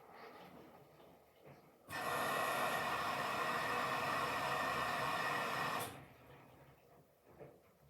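Washing machine running mid-cycle: a steady rushing sound starts abruptly about two seconds in and cuts off about four seconds later, with faint machine noise either side.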